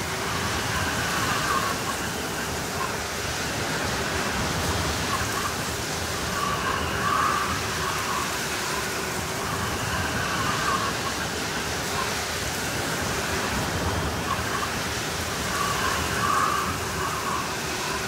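Blizzard wind, a steady rushing hiss with a wavering whistle that swells every few seconds.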